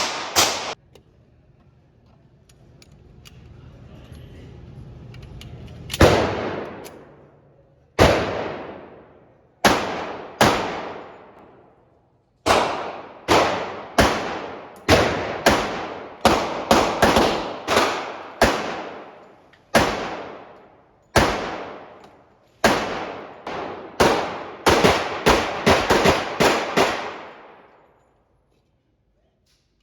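Gunshots in an indoor shooting range, each ringing out in a long echoing tail. After a pause of several seconds comes a string of about two dozen shots at uneven spacing, some in quick pairs, which stops a couple of seconds before the end.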